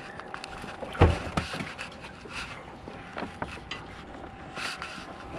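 Handling noise on a small fishing boat while a caught fish is unhooked: a sharp knock about a second in, then lighter clicks and rubbing.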